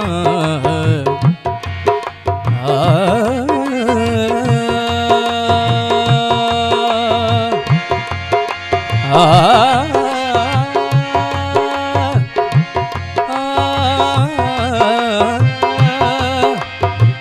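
Sindhi Sufi devotional song: a male voice sings long, wavering ornamented lines over long held notes and a steady hand-drum beat.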